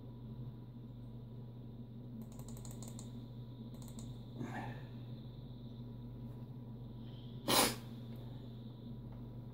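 Steady low hum of a running desktop computer, with a quick run of light keyboard clicks about two and a half seconds in and a brief loud whoosh of noise near the end.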